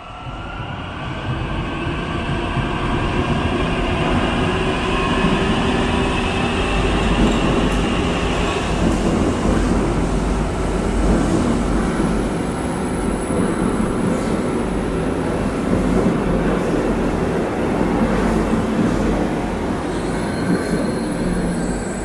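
A metro train comes out of the tunnel and runs along the station platform without stopping. The rumble grows louder over the first few seconds, with wheel squeal and gliding whines early on, then a steady loud running noise with a thin high whistle.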